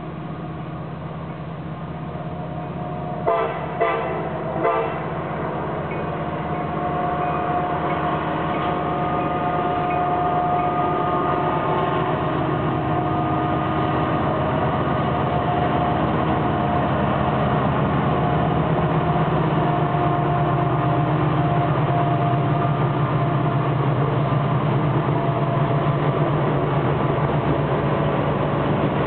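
Approaching freight train led by EMD SD70ACe and SD60M diesel locomotives: three short horn toots a few seconds in, then the locomotives' engines and the train growing steadily louder as they draw near.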